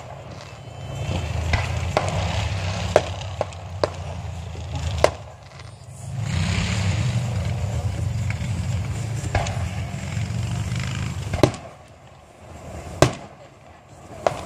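Fireworks going off, a string of sharp bangs and pops about a second or two apart, the loudest two near the end, over a low rumbling noise.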